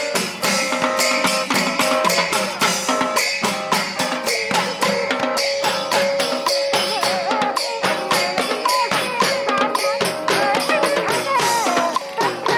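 Music with a fast, steady percussion beat of drum and tambourine-like strikes; a wavering melody line comes in about halfway through.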